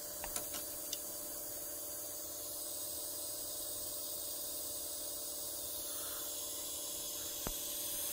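Steady background hiss with a faint hum, broken by a few light clicks in the first second and one sharper click near the end.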